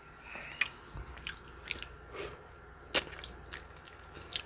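A person chewing close to the microphone, with a few scattered, short, sharp clicks and smacks from the mouth.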